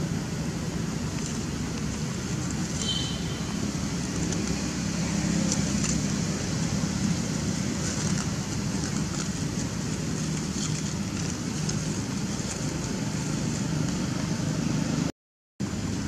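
Steady outdoor background noise with a low hum, like distant road traffic, and a brief high chirp about three seconds in. The sound cuts out completely for about half a second near the end.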